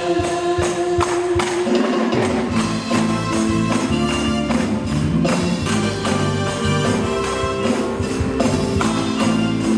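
Live church worship band playing an upbeat praise song, with a steady beat of bright percussion over keyboard and band. The bass drops out at the start and comes back in about two and a half seconds in.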